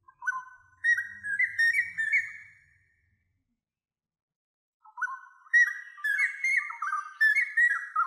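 Two runs of clear whistled notes, each note a quick upward slide, stepping up and down in a lively melodic phrase. The first run stops sharply about three seconds in, and the second begins about two seconds later.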